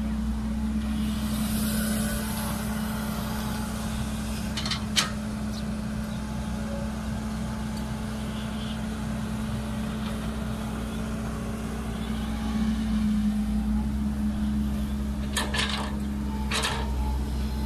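CAT hydraulic excavator's diesel engine running steadily as it digs and swings, with one sharp knock about five seconds in. Near the end a few sharp knocks come as the bucket dumps soil into the dump truck's bed.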